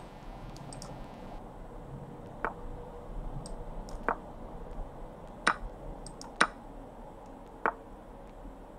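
About five short, sharp clicks, a second or so apart, as moves are played in an online chess game on a computer; the two in the middle are the loudest.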